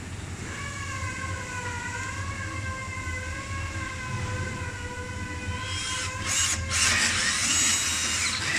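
Red cordless drill driver running as it drives a screw into the rowing machine's footrest, loudest from about six seconds in. Before that a steady, slightly wavering whine is heard.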